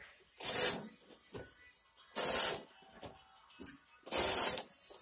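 Three brief swishing, scraping noises about two seconds apart, from carpet being kicked and pushed into place during stretching.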